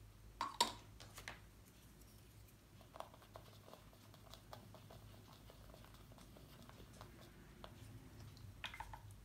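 Faint scattered taps and clicks of a paintbrush stirring watercolour in a plastic palette well, with a couple of sharper clicks in the first second.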